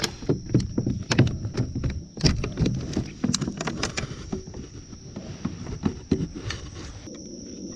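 Irregular knocks, thuds and clatters against a kayak as a just-caught bass is landed and handled, thick for the first few seconds and then thinning out. Insects whine steadily in the background.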